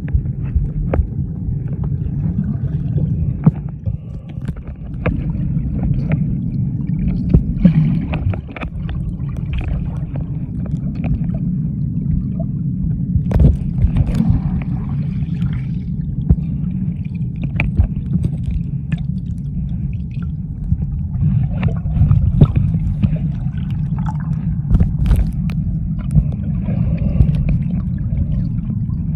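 Muffled underwater sound picked up by a submerged camera: a steady low rumble of water moving around the housing, with scattered sharp clicks and bits of gurgling.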